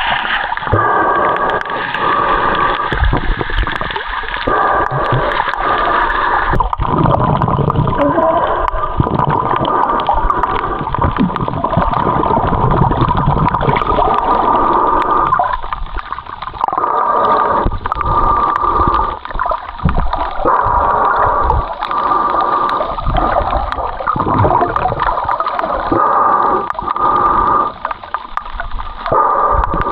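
Muffled water sloshing and gurgling around a camera held at and under the sea surface while snorkelling, in irregular surges, with a steady hum underneath.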